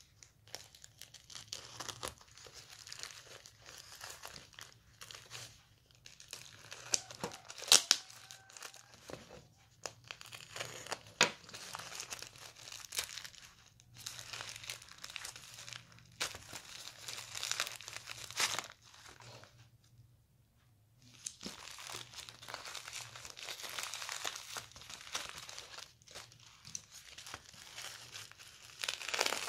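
Plastic courier mailer being cut and torn open, then bubble-wrapped contents handled: plastic crinkling and rustling with tearing, a few sharp snaps, and a brief pause about two-thirds of the way through.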